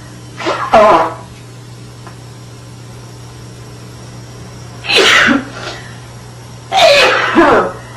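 A woman sneezing three times in a row, about a second in, about five seconds in and about seven seconds in, each sneeze a short, loud, voiced burst: an allergic sneezing fit.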